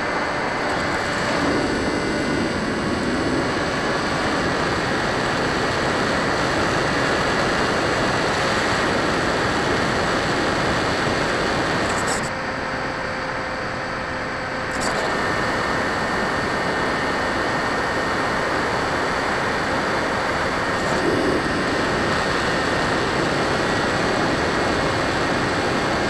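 Electric motor and propeller of a Drifter ultralight RC model plane in flight, picked up by the small onboard keychain camera: a steady rush of wind and propeller noise with a faint steady motor whine. About halfway through, the sound drops and dulls for a couple of seconds, then returns to its earlier level.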